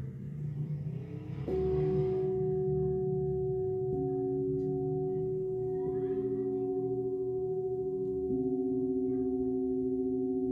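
Metal singing bowls struck with a mallet one after another, about a second and a half in, at about four seconds and again near eight seconds. Each rings on in a steady tone, so the notes overlap and build into a sustained chord. A soft rustling comes before the first strike.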